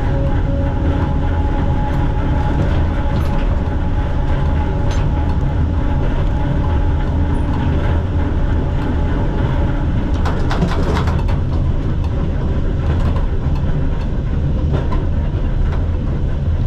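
Museum tram running along its track: a steady rumble with a faint whine, and a short run of sharp clicks about ten seconds in.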